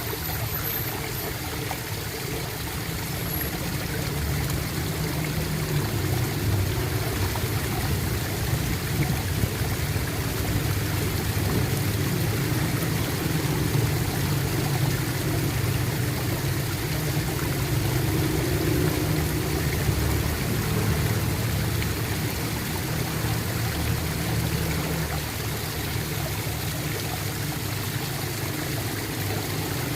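Running water gurgling steadily, with a strong low rumble under it, swelling slightly in the middle.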